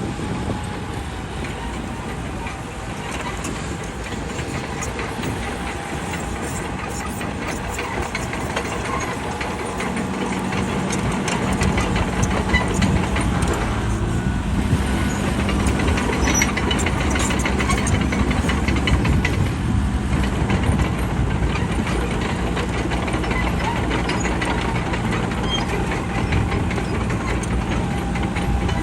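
Bulldozer's diesel engine running under load, getting louder about ten seconds in, with a steady low hum from then on.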